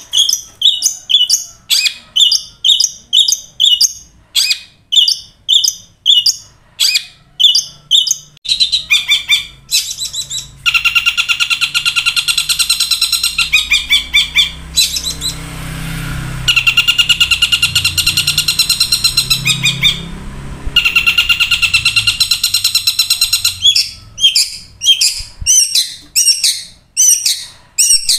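Caged long-tailed shrike (cendet) singing loudly, its song a mix of mimicked calls (the 'kuntilanak' sound combined with tengkek buto). A run of sharp repeated notes, about four a second, gives way about ten seconds in to a long, fast, harsh rattling trill in three stretches, then the repeated notes return near the end.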